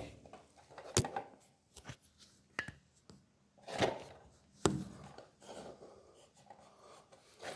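A handful of sharp clicks and light knocks with some rubbing, as a wedge alarm door stopper is handled and set down on the floor behind a door. The siren does not sound.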